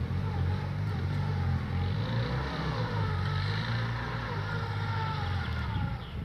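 Motorcycle-with-sidecar engine running under load off-road, its pitch rising and falling as it is revved up and eased off.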